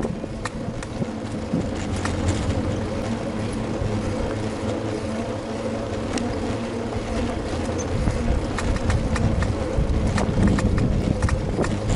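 A bicycle in motion: a steady rolling hum with scattered short clicks and rattles.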